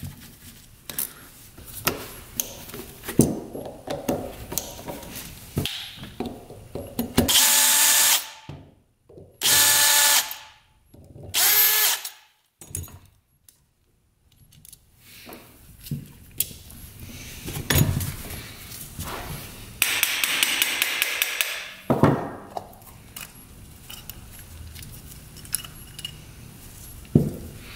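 Cordless drill-driver whirring in short runs, three in quick succession and a longer one later, backing screws out of a carburetor, between light clicks and taps of small metal parts being handled.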